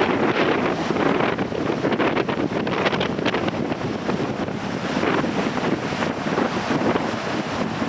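Strong wind buffeting the microphone over the steady wash of sea waves breaking on rocks.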